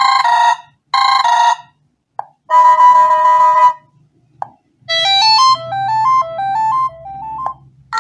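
BQ Contact phone playing its preset ringtones and message tones one after another: a short two-note chime sounded twice, then a held tone of about a second, then a quick run of stepping electronic notes. Soft clicks come in the gaps between tones.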